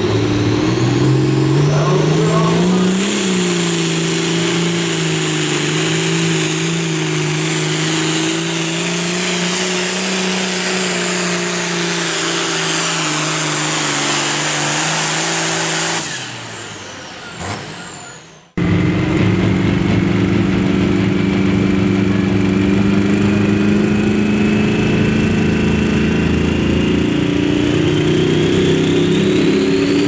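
A pulling tractor's diesel engine, an Allis-Chalmers D-21, revs up hard and runs under full load during a pull, then fades away. After a cut, a Massey Ferguson pulling tractor's diesel runs steadily with a turbo whine that slowly rises in pitch, and the engine revs up near the end as its pull starts.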